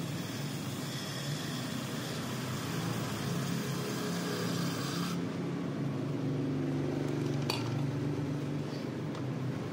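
Aerosol can of Würth brake cleaner spraying a steady hiss into a plastic cup to fill it for soaking bearings; the spray cuts off sharply about five seconds in. A single sharp click follows a couple of seconds later.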